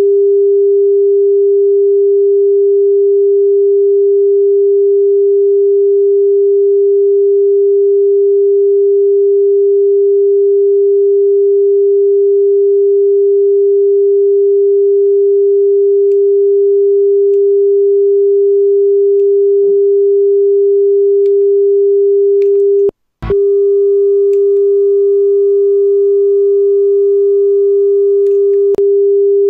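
Steady test tone of about 400 Hz from a signal generator, heard through a Pioneer CT-939 cassette deck's line output. About 23 seconds in it cuts out for an instant with a click. It then comes back with faint hiss and a faint higher tone added, as when the deck is heard off tape while recording.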